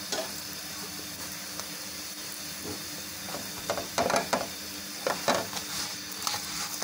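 Whole-wheat paratha frying in ghee on a hot non-stick pan: a steady sizzle, with a run of sharp crackles and pops about halfway through as more ghee is rubbed onto it.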